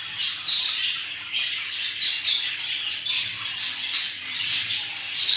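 Many budgerigars chattering and warbling at once, a dense, unbroken stream of overlapping chirps and squawks.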